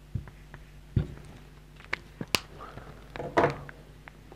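Dry-erase marker on a whiteboard: a few light taps and short scratchy strokes as a word is finished, with a sharp click about two and a half seconds in.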